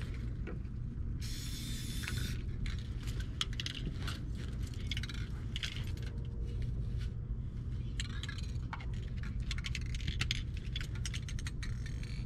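Aerosol spray paint can and stencil handling: a short spray-can hiss about a second in, then many light clicks and rattles as the cans are handled and shaken, over a steady low rumble.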